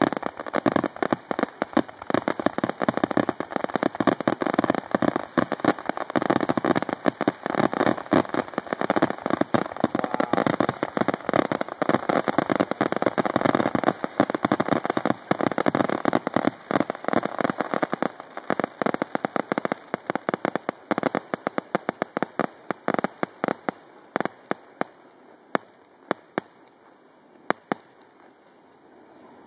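Fireworks grand finale: a dense, rapid barrage of aerial shell bursts, thinning out after about 18 seconds to scattered single bangs that die away near the end.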